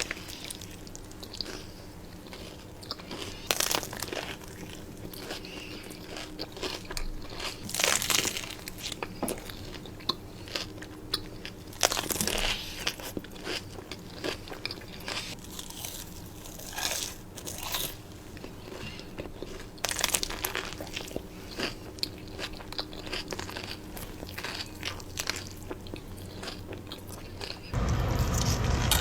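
Close-miked mukbang eating of In-N-Out food: irregular bites and crunchy, wet chewing, with some louder crunches scattered through. About a second before the end a louder low rumble comes in under the eating.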